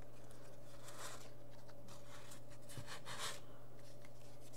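Soft rubbing and swishing as a hand wipes and mops up wet paint on a paper index card, with two stronger swipes, about a second in and about three seconds in. A steady low electrical hum runs underneath.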